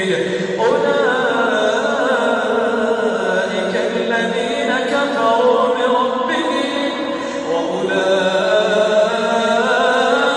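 A single voice chanting in long melodic phrases, laid over the footage as the soundtrack.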